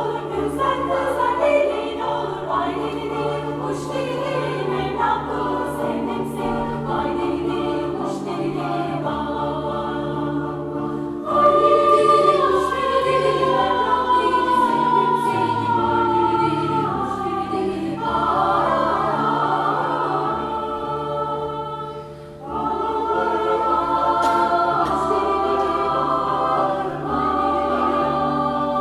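Mixed amateur choir singing a multi-part arrangement of a Turkish folk song over piano accompaniment. About eleven seconds in the voices come in louder, with a high line stepping downward. After a brief drop about twenty-two seconds in, they swell again.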